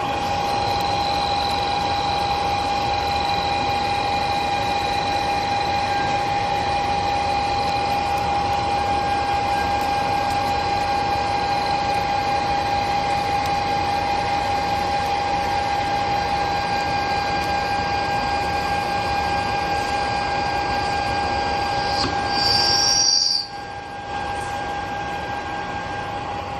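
Metal lathe turning stainless steel: a steady whine with several held tones over the machine's running noise. About three-quarters of the way through, a brief higher squeal rises, then the level drops suddenly and the lathe runs on more quietly.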